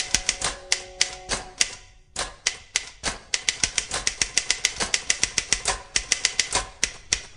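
Electric typewriter being typed on: sharp key strikes in an uneven rhythm, a brief pause about two seconds in, then faster, steadier typing.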